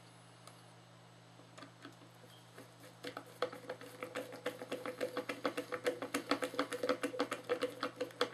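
Screwdriver driving a small terminal screw down onto a wire in a plastic switch housing: faint at first, then from about three seconds in a fast run of small clicks and scrapes.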